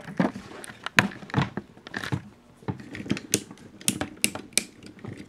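Irregular plastic clicks and light knocks as the arm and shoulder joints of a Yamato 1/3000 SDF-1 Macross toy are rotated through their ratchet clicks by hand.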